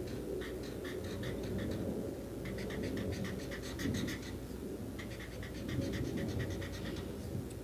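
Felt-tip marker scratching across paper in quick back-and-forth strokes as it draws zigzag lines, about five strokes a second in three runs with short pauses between them. A steady low rumble sits underneath.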